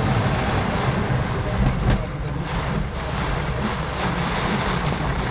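Heavy storm rain beating on a moving vehicle, heard from inside the cabin as a steady hiss over the low rumble of the engine and road.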